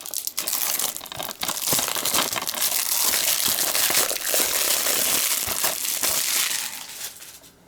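Plastic shrink-wrap crinkling and crackling as it is handled and peeled off a DVD case, with scattered small clicks, dying away near the end.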